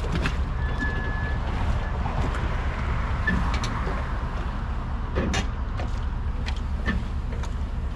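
Tow vehicle's engine running steadily with a low rumble while a boat slides back off its trailer into the water. Scattered knocks and creaks come from the hull and trailer, and a brief high steady tone sounds about a second in.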